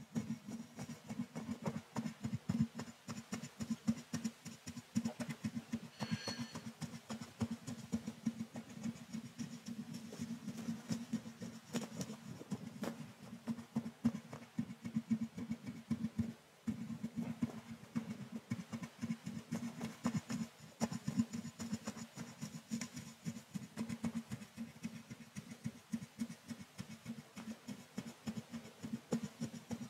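Thin brush stroked back and forth against a microphone's mesh grille: fast, continuous scratchy strokes with a brief pause a little past the middle.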